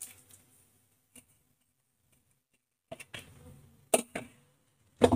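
A few sharp clicks and knocks, about five in the last two seconds, as a mixer-grinder jar is handled and set down on a hard countertop. Before them there is almost nothing to hear.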